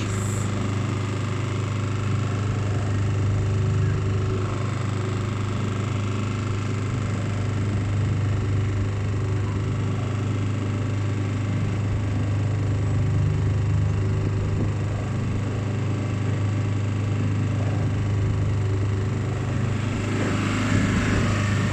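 Small hired motorboat's engine running at a steady low hum while the boat cruises along the river.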